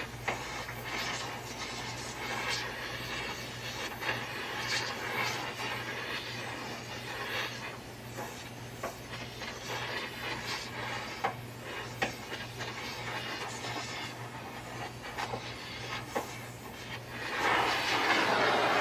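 Oxy-acetylene torch flame hissing steadily as it gas-welds a car's steel chassis rail, with scattered crackles and pops. The hiss swells much louder near the end.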